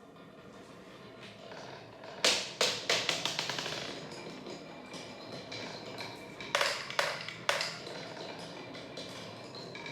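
Marbles rolling down a wooden marble run with a steady rumble. Sharp clacks come as they strike the wood and each other: a quick run of them about two seconds in, and three more between six and a half and seven and a half seconds.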